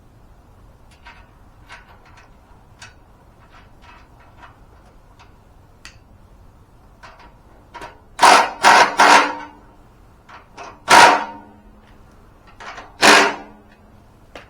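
Hand tools and metal parts at work as a front wheel is fastened onto an off-road floor jack with a washer and 19 mm nut: light scattered clicks and taps, then five loud short metallic bursts in the second half, the last ones ringing briefly.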